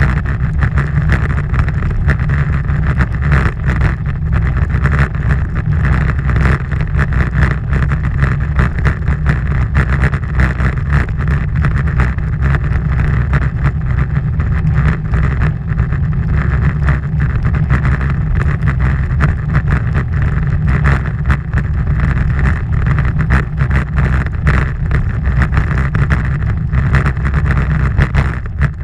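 Steady, loud wind rush buffeting a bike-mounted camera's microphone while cycling along a paved road.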